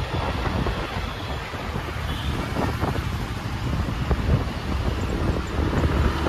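Wind buffeting the microphone of a moving scooter, over the steady noise of city road traffic.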